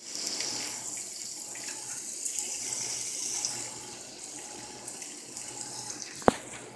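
Bacon sizzling and crackling on a hot electric griddle: a steady high hiss with small pops that eases off a little partway through. A single sharp click comes near the end.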